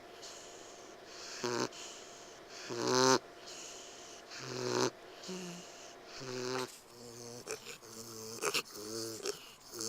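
Potbelly piglet's noisy, wheezing breaths, each one a rasping snore-like sound about every one and a half seconds, turning to shorter, quicker sounds from about seven seconds in. The vet likens the breathing to a bulldog's and suspects a blocked airway, possibly at the epiglottis or soft palate.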